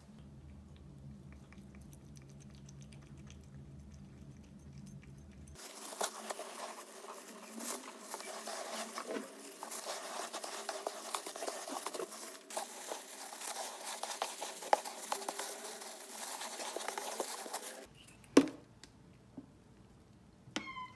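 Cat litter being scooped: a scoop and a plastic-gloved hand rake and scrape through the gritty litter in a litter box, giving a rustling, crunching noise with many small clicks. It starts after a few seconds of quiet hum and cuts off suddenly, followed by a single sharp knock.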